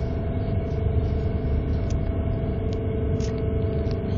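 Madrid Metro Line 12 train running along a station platform, heard from inside the carriage: a steady low rumble with a constant motor whine and a few faint clicks.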